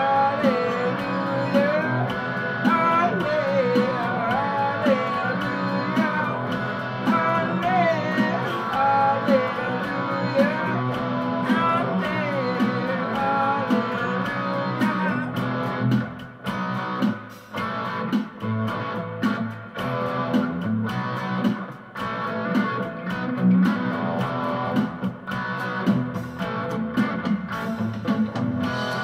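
Electric guitar played through an amplifier: a lead line with bent, gliding notes over sustained lower notes. The playing thins out about halfway, with short gaps.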